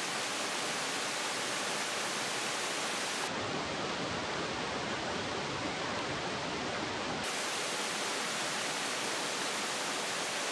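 Steady rush of a small waterfall and stream flowing over rocks, with a deeper low rumble for a few seconds in the middle.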